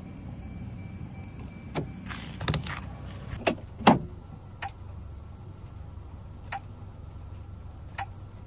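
Scattered sharp clicks and taps of small metal locksmith tools being handled, about eight over several seconds and loudest about four seconds in, over a steady low hum.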